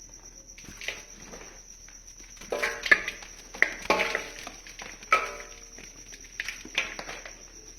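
Dried brown mud shapes being crushed and crumbling, in a series of crisp crunches, the loudest about three, four and five seconds in. A steady high-pitched whine runs underneath.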